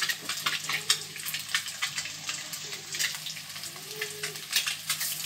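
Water with whole spices simmering in a steel cooking pot, a continuous fine crackling hiss of small bubbles over a low steady hum.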